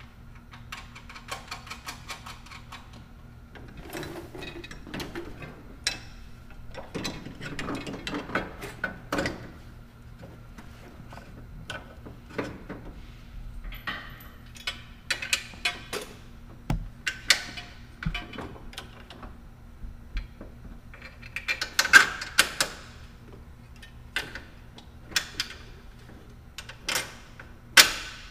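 A hand ratchet clicking and metal tools and bolts clinking as the front strut is bolted back to the steering knuckle. The clicks and knocks come irregularly, with the sharpest metallic knocks in the last third.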